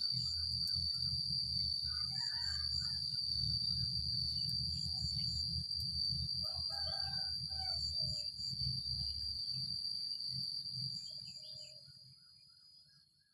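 Cicadas droning in one steady high-pitched whine. Bird calls break in twice, and a low rumble underneath fades out near the end.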